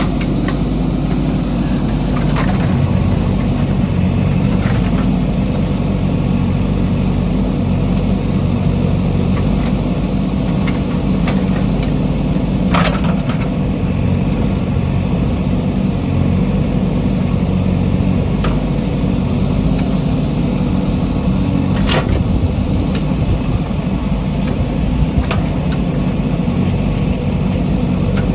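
JCB backhoe loader's diesel engine running steadily, with several short sharp clanks or knocks over it, two of them louder.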